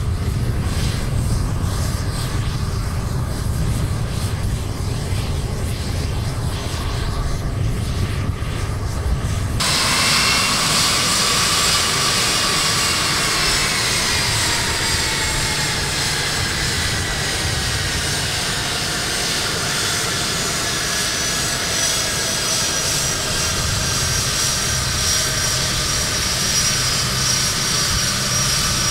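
Boeing C-17 Globemaster III turbofan jet engines: a low rumble, then, after an abrupt cut about ten seconds in, a loud jet whine whose high tones slide slowly down in pitch and then hold steady.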